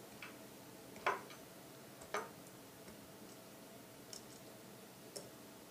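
Faint clicks and taps of metal parts being handled as the barrel of a Weihrauch HW80 air rifle is fitted to its action: a handful of separate clicks about a second apart.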